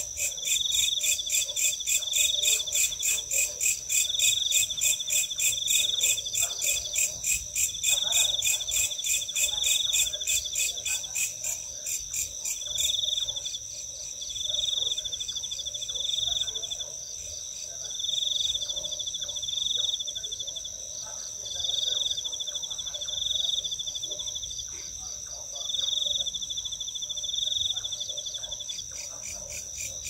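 Night insect chorus: crickets trilling steadily, with another insect calling in short repeated bursts about every second and a half. A fast, high pulsing trill stops about halfway through.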